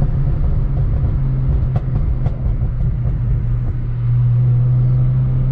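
BMW 335i's N54 inline-six, converted to a single turbo, running under light load as heard inside the cabin: a low, steady drone. There are two light clicks about two seconds in, and the drone evens out and grows a little louder about four seconds in.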